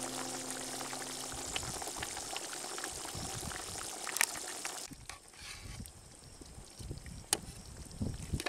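A thick curry gravy bubbling at a simmer in a pot, a busy crackle of small bursting bubbles, with background music fading out in the first second or so. About five seconds in the sound cuts to a quieter stretch with a few sharp clicks.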